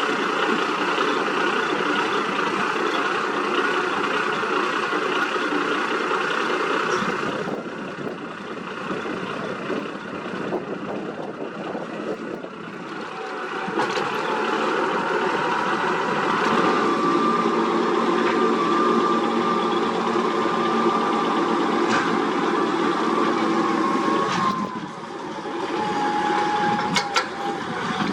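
Diesel engines of heavy earthmoving machines, an excavator and a motor grader, running steadily while working. The noise dips for a few seconds about a quarter of the way in, and a steady whine rides over it for several seconds in the second half.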